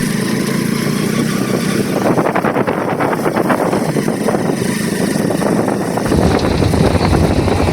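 A vehicle engine running steadily while driving along, with rough road and air noise.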